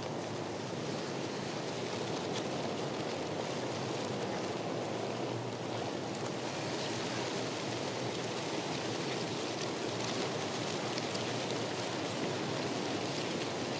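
Steady rush of water, like rain or a stream, with fine pattering ticks; the higher hiss grows a little fuller about halfway through.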